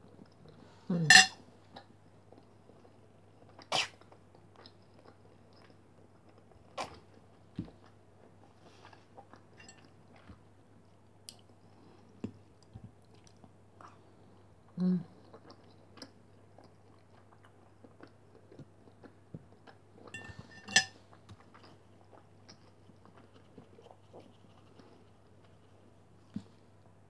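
A person chewing boiled beef pelmeni with mouth-close eating sounds, broken by a few sharp clicks, the loudest about a second in, over a low steady hum.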